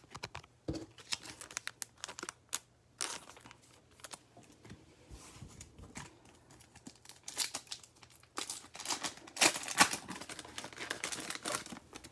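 A trading-card pack wrapper crinkling in the hands and being torn open. The crackling comes in scattered bits at first, then a dense, louder run of tearing and crinkling about two-thirds of the way through.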